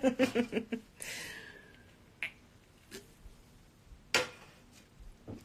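A woman's voice trailing off, then a breathy hiss of about a second, and a few short, sharp clicks spaced a second or so apart.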